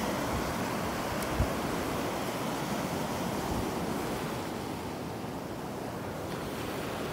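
Surf washing in over the sand, a steady wash of foam and shallow water, with some wind on the microphone. A brief low thump about one and a half seconds in.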